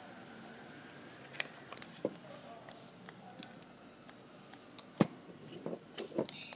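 Handling noise from a plastic AC power adapter being turned over in the hands: scattered light clicks and taps. The sharpest knock comes about five seconds in, followed by a few more near the end.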